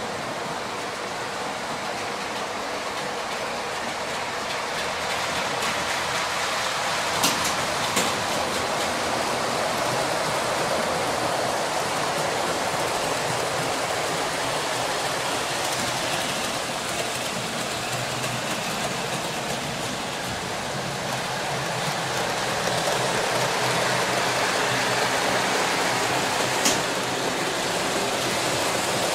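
00 gauge model trains running on the layout: a steady rushing rumble of motors and wheels on the track, which swells as a train passes and then eases. A few sharp clicks are heard, two of them close together about seven seconds in and another near the end.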